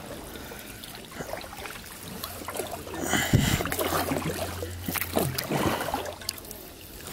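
Kayak paddle strokes: the blades splash and water drips and trickles off them, louder from about three seconds in.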